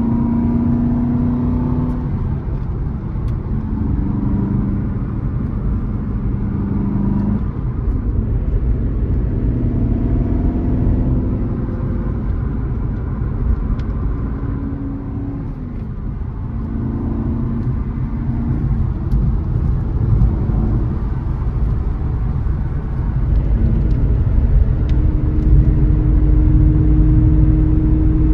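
The 4.3-litre V8 of a 2007 Aston Martin V8 Vantage, heard from inside the cabin on the move. Its note steps up and down several times, with breaks as it changes gear, and settles into a steady drone near the end.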